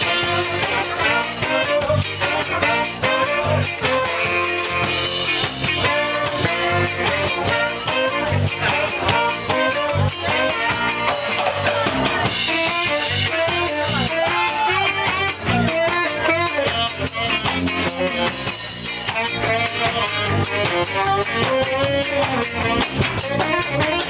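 A live ska band playing: a horn section of saxophones and trumpets over a drum kit keeping a steady beat.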